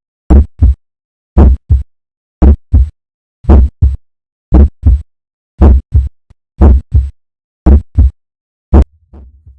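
Heart sounds at the mitral valve area: a regular lub-dub, a first sound followed about a third of a second later by a second, repeating about once a second, nine beats in all, with silence between the beats. Near the end the beats stop and a faint low hum follows.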